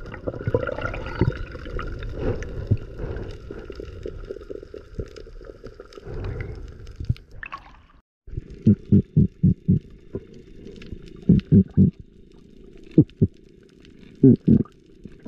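Muffled water sound through an action camera's waterproof housing, at and below the sea surface: a steady sloshing, bubbling haze that cuts off suddenly about eight seconds in. Then comes a duller stretch broken by runs of short, dull thumps.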